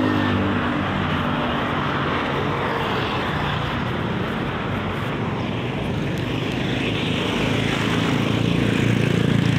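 Road traffic passing close by: motorcycle engines running past over a steady traffic rumble, one engine growing louder near the end.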